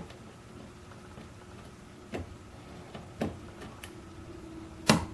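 Lock pick and tension wrench working the pins of a Weiser interchangeable-core lock: a few scattered light clicks, the loudest near the end as a pin sets.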